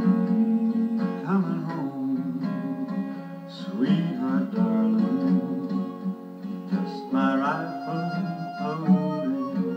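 Background music: a slow cowboy song with acoustic guitar accompaniment, here in a gap between sung lines.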